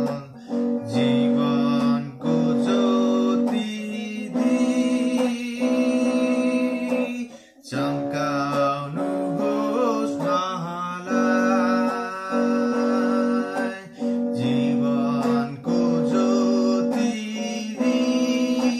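A man singing a slow Nepali Christian worship hymn in long held notes, accompanied by a headless travel guitar.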